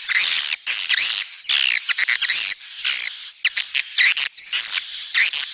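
Swiftlet breeding calls: rapid, high chirping twitters in quick succession, each note a short rising-and-falling chirp, with a thin steady high whistle running beneath them at times. This is a mating-call track of the kind played to lure swiftlets into nesting houses.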